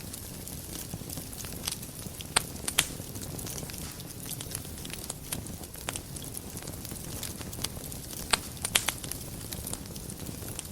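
Wood fire burning in a fireplace: a steady low rumble and hiss with sharp crackles and pops scattered through, a few louder snaps a couple of seconds in and again near the end.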